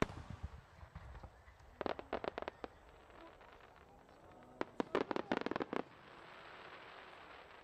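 A large aerial firework shell bursts with a deep boom. About two seconds later and again about four and a half seconds in come runs of rapid crackling pops as its many small sub-bursts go off.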